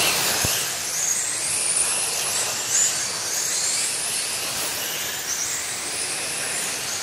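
Electric RC mod sprint cars racing on a dirt oval: a steady hiss with high-pitched motor whines rising and falling as the cars accelerate and lift through the corner.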